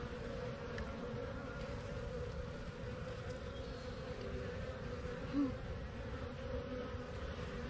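Steady buzzing hum of a mass of honeybees clustered on comb in a hive frame, from a calm colony. About five seconds in there is one brief, louder hum, such as a single bee close by.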